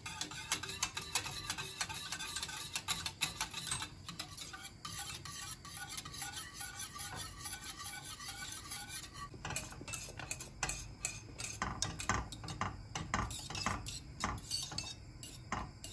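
Wire whisk stirring pastry cream in a stainless steel pot. Its wires scrape and clink against the pot's sides and bottom in quick continuous strokes while the cream cooks and thickens. The clinks grow sharper in the second half.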